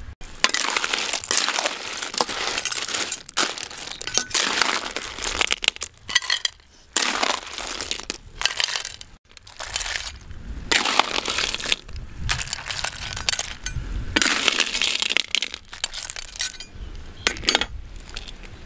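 Cooked river clams clattering and clinking against each other and a metal ladle as they are scooped from a steel pan and tipped onto a plate, in several long bouts with short pauses between.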